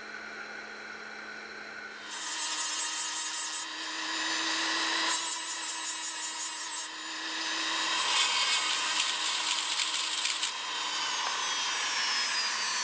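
A small power tool working a piece of antler. After a faint steady hum, it bites in loudly about two seconds in and grinds in three surges, its motor whine running underneath. Near the end it runs on more evenly and its pitch starts to fall.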